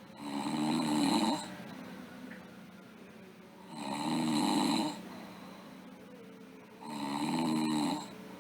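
A sleeping girl snoring: three snores about three seconds apart, each lasting a little over a second.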